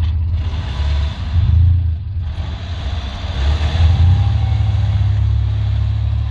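Engines running hard under load as a six-wheel-drive Pinzgauer tows a stuck 4x4 on a chain through deep snow and mud: a deep rumble that surges about a second and a half in and again around four seconds.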